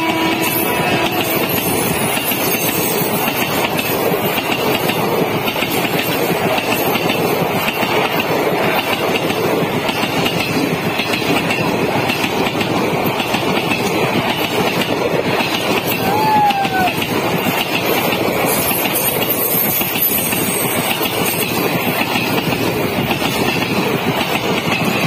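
Passenger coaches of an Indian Railways express train rushing past at speed close by: a loud, steady rush of wheels and wind with the clickety-clack of wheels over rail joints. A short falling chirp cuts through about two-thirds of the way in.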